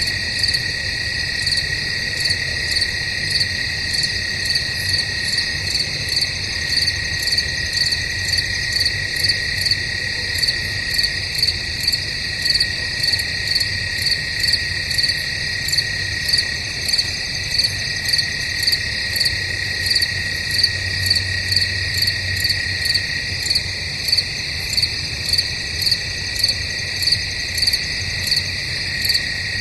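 Chorus of night crickets in woodland. Evenly spaced chirps repeat a little more than once a second over a steady, continuous high trill.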